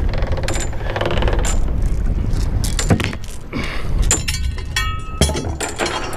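Galvanized anchor chain clinking and rattling as it is hauled in by hand over the boat's bow rail and stowed at the bow, with a ringing metal clank about five seconds in. A steady low rumble of wind on the microphone lies underneath.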